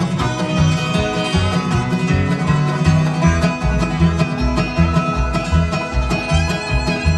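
Live bluegrass band playing an instrumental break, with banjo and guitar picking over a steady bass beat.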